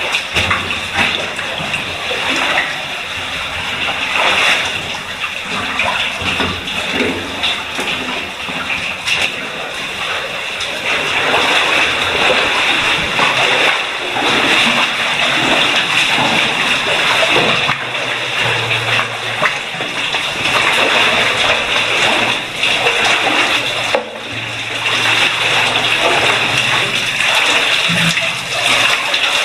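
Water running and splashing in a cave streamway, a steady rush with irregular splashes and falling drips.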